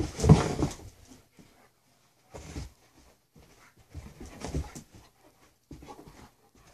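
German Shepherd dogs sniffing and panting in short bursts, the loudest about half a second in, with quiet gaps between.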